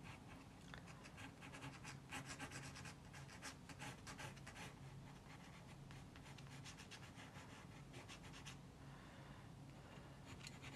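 Pencil sketching on paper: a run of quick, faint scratchy strokes that stop about two seconds before the end, then start again briefly at the very end, over a faint steady low hum.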